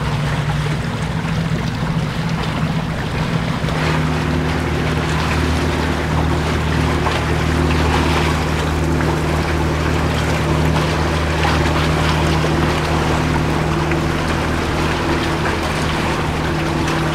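Motorboat running past at speed: a steady low engine drone over the rush of water and wake. The engine's hum grows stronger about four seconds in and then holds steady.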